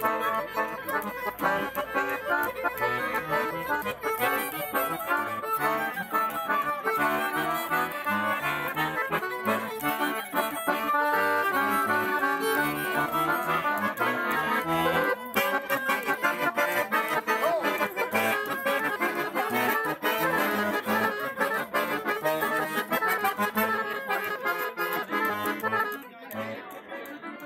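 Violin and chromatic button accordion playing a tune together live, with quickly changing notes throughout. The music gets quieter about a second before the end.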